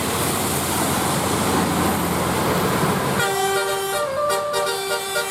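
A loud rushing noise, then about three seconds in a bus's multi-tone 'telolet' musical air horn starts playing a tune of short changing notes.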